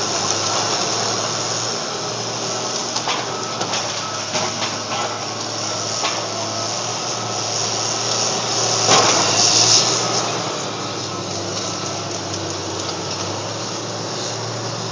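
Big bulldozer's diesel engine running steadily under load, working rubble, with scattered knocks from the first few seconds on and a louder burst of noise about nine seconds in.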